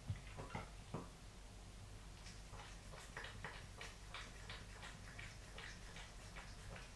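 A cat lapping water off a bathroom floor: a run of quick, soft wet clicks, about three or four a second, with a few louder ones in the first second.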